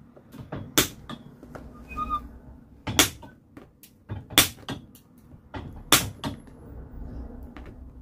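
Cobbler's nippers snipping off the tops of old nails left in a shoe's heel: four loud, sharp snaps as nails are cut through, with lighter clicks of the jaws between them.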